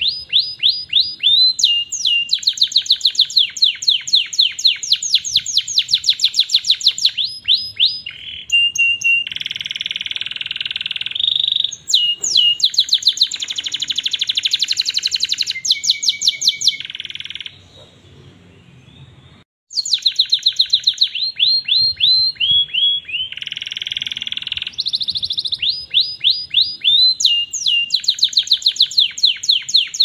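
Domestic canary singing a long song of fast trills: quick runs of repeated downward-sweeping notes alternating with steady buzzy rolls. The song breaks off for about two seconds a little past the middle, then resumes.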